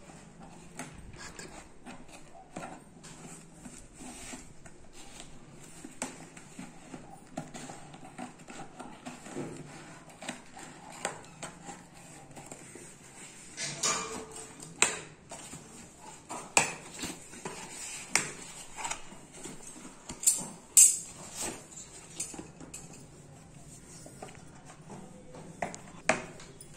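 Large steel scissors snipping through a cardboard shipping box, with irregular clicks, scrapes and knocks of blades and cardboard being handled. A few sharper cracks stand out in the middle and near the end, as the box is forced open and a phone box is slid out.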